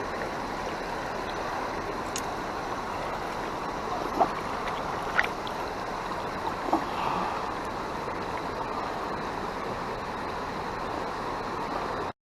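River water running steadily over rapids, with three brief sharp clicks or splashes about four, five and seven seconds in. It cuts off suddenly at the end.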